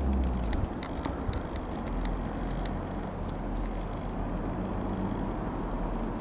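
Distant steady drone of an Ikarus C-42 microlight's Rotax 912 piston engine passing overhead, as a low rumble, with a run of short sharp ticks through the first three seconds.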